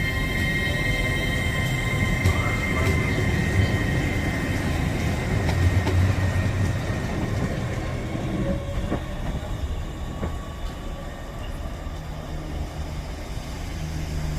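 Train running through the station: a low rumble with a steady high-pitched whine, loudest for the first half and then fading away.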